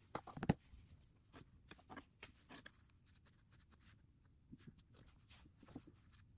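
Watercolour brush working on paper: faint, short scratchy strokes, with a quick cluster of sharp taps just after the start.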